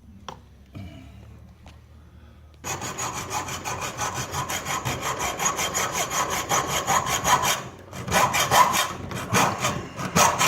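A few faint handling clicks, then about two and a half seconds in, rapid, even back-and-forth sawing strokes begin, cutting the barbs off a homemade carburetor fuel-inlet fitting. The strokes pause briefly near the end and resume.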